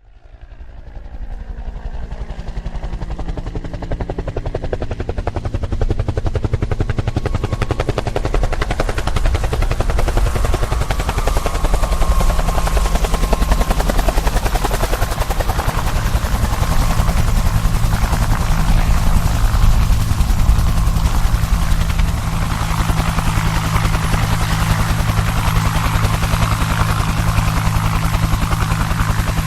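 Helicopter sound effect: a steady, fast rotor chop over a low engine drone, fading in over the first couple of seconds and then holding steady.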